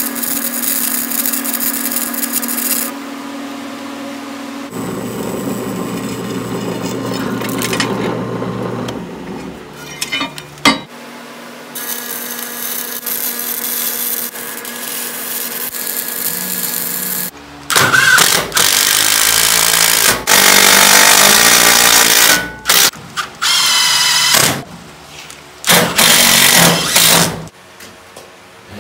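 Stick (arc) welding on steel: the arc crackles and sputters, over a steady hum early on, in several separate takes. In the second half, louder bursts of a few seconds each start and stop abruptly.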